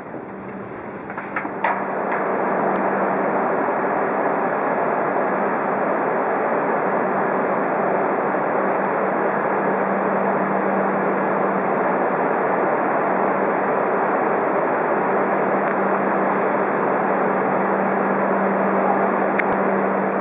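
Quieter train running noise for the first two seconds, then a cut to a steady, even rushing drone with a constant low hum. This fits an E5 series Shinkansen standing at the platform with its equipment running. The hum drops out for a few seconds in the middle and then returns.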